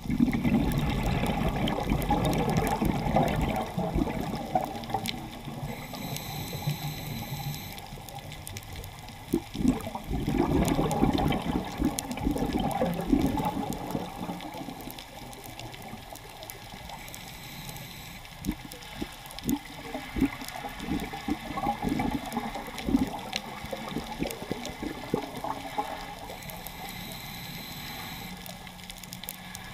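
A scuba diver breathing through a regulator underwater: three long rushes of exhaled bubbles about ten seconds apart, each followed by a quieter inhale with a faint high hiss.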